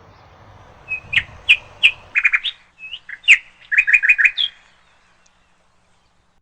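A songbird singing one phrase: a few sharp, high chirps, then quick runs of rapidly repeated notes, ending about four and a half seconds in. A low background rumble cuts off about two seconds in.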